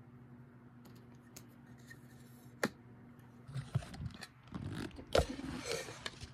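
Recording device being picked up and handled, giving knocks and rustling against the microphone. A single click comes just before three seconds in, the handling noise starts about half a second later, and the loudest thump comes about five seconds in, over a faint steady hum.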